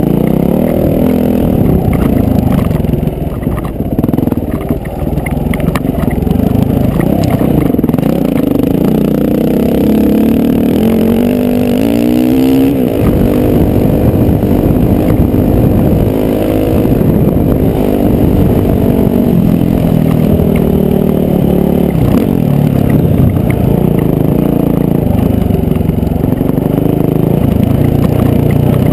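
Dirt bike engine running hard under changing throttle, its pitch rising and falling, with a steep rise in revs about twelve seconds in, heard from a helmet-mounted camera.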